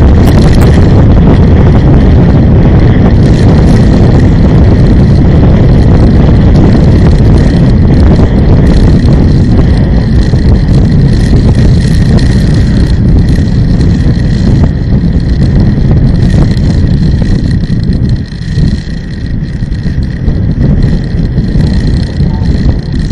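Road and engine noise of a moving vehicle, a loud, steady low rumble with wind on the microphone, dipping briefly about eighteen seconds in.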